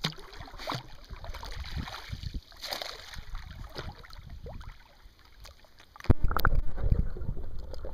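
Water splashing and sloshing around a flat-coated retriever puppy swimming with a rope toy. About six seconds in the sound changes abruptly to a loud, muffled low rumble and bubbling as the microphone goes underwater.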